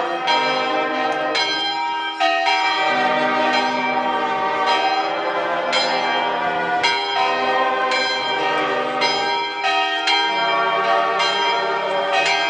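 Church bells pealing: several bells struck one after another at uneven spacing, about two strokes a second, their tones ringing on and overlapping.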